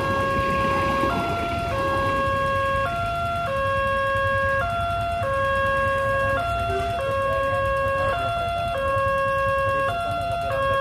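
Railway level-crossing warning siren sounding a repeating two-tone pattern: a lower tone lasting a little over a second, then a shorter higher tone, cycling steadily about every two seconds.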